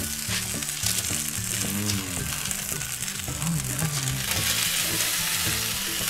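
Steady sizzling and crackling from food cooking on a cast-iron plate over a charcoal kettle grill, with a few sharp ticks as a metal spatula moves on the plate. Background music with a low bass line plays underneath.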